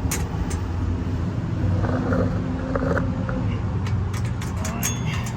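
Steady low rumble of road traffic, with scattered light clicks and taps that come thicker near the end.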